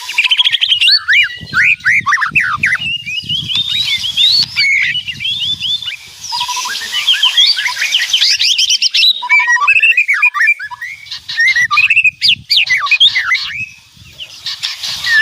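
White-rumped shama singing loudly: a fast, nearly unbroken stream of varied whistled phrases, sweeping notes and quick chattering runs.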